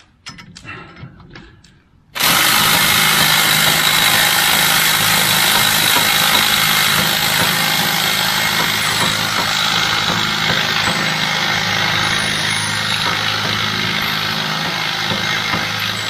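A machine starts suddenly about two seconds in and runs steadily, with a loud hiss over a low hum, after a few faint knocks.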